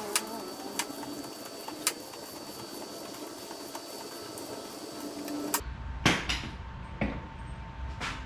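Scattered clicks and clanks of hand tools working on a motorcycle's rear shock mounting. A few louder metallic knocks come in the last few seconds.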